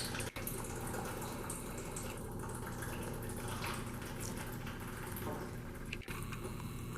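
Pre-workout drink being chugged from a bottle in one go: liquid gurgling and sloshing as it is drunk.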